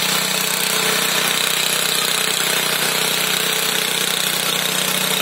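Westwood ride-on garden tractor's engine running steadily with an even hum as it is driven across the grass.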